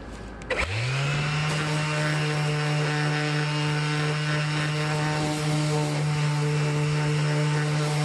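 Makita 18V cordless orbital sander switched on about half a second in: its motor spins up quickly and settles into a steady hum. It holds that hum while it sands a PVC foam plug flush with the fibreglass deck.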